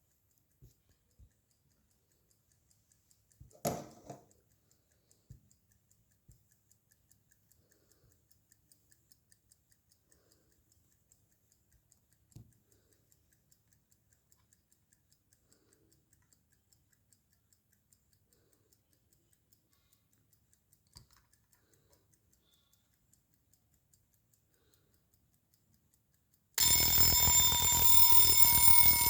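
Faint, even ticking of a 1960s German Europa wind-up mechanical alarm clock, broken by a few knocks. Near the end the alarm bell goes off and rings loud and continuously.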